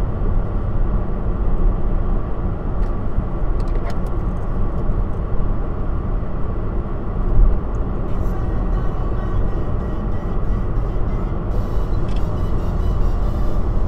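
Steady road and engine noise heard inside a vehicle's cab cruising at motorway speed, with one brief louder bump about seven seconds in.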